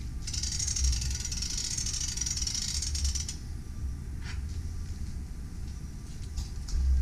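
S70 spring starter on a Cummins NT855 being hand-wound toward full charge with its winding lever: a high hiss for about the first three seconds, a few light clicks, and a low thump near the end over a steady low rumble.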